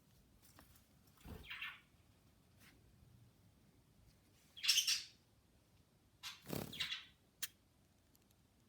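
Budgerigar giving three short, harsh chirps, the loudest about halfway through, with a sharp click near the end.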